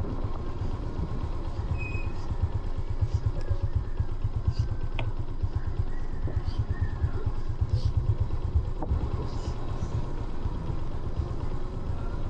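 An engine running steadily: a low rumble that pulses rapidly and evenly.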